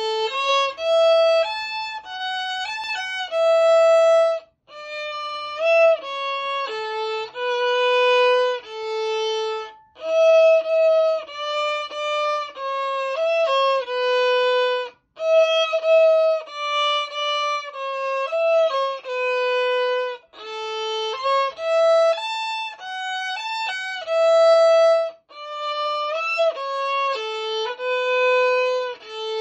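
A young girl playing the violin solo, unaccompanied: a single bowed melody of clear sustained notes, in phrases of about five seconds that each end in a brief stop.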